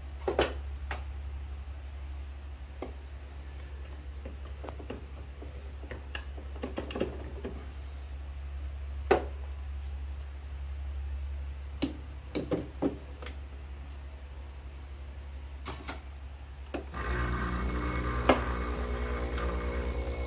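Sharp clacks and knocks of a metal portafilter being handled and locked into a Breville espresso machine's group head. About 17 seconds in, the machine's pump starts with a steady buzzing drone as the shot begins.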